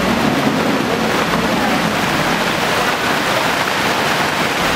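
Muddy flash floodwater rushing across a street, a steady, dense rushing noise, with rain falling.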